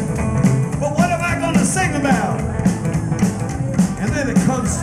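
Live rockabilly band playing: electric guitar and drums over a steady beat, heard through the concert sound system.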